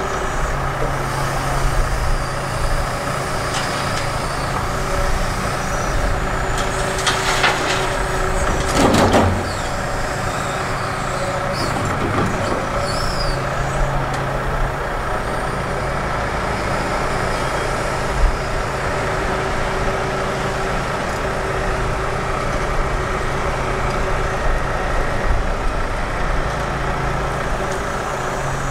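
Hitachi 245 excavator's diesel engine running steadily under load as its hydraulics dig and swing, with a louder rush of soil and gravel pouring out of the bucket about a third of the way in, and a single knock near the middle.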